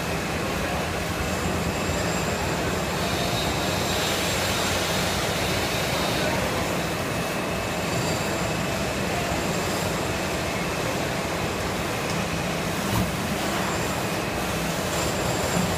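Injection moulding machine running steadily through a moulding cycle, with a faint higher whine for a few seconds and a couple of brief knocks near the end as the mould opens.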